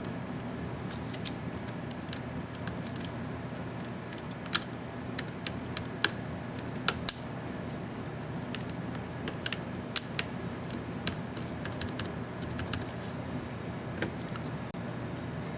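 Scattered small plastic clicks and taps of a laptop Enter keycap and its retainer clips being handled and fitted onto an Asus X550C keyboard, over a steady low hum.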